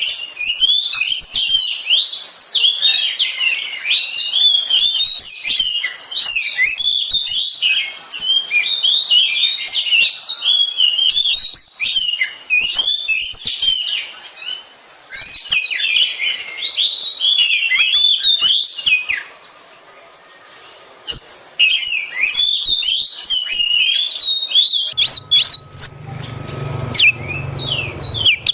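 Oriental magpie-robin (kacer) singing a fast, varied song of rapid whistled phrases that sweep up and down, with a short pause about two-thirds of the way through. A low hum comes in near the end.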